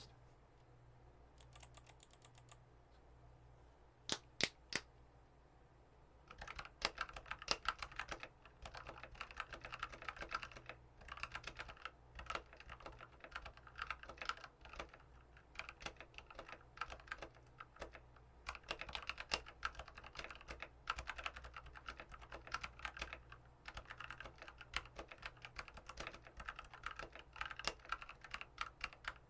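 Typing on a mechanical keyboard fitted with lubed Feker Airy 67-gram linear switches with oiled springs. A few single keystrokes come in the first seconds, then steady runs of typing with short pauses.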